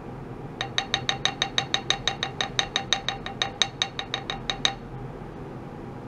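Small wooden mallet tapping a metal plate fast and evenly, about two dozen taps at roughly six a second, each with a brief bright ring. The taps excite the plate for an impulse-response measurement.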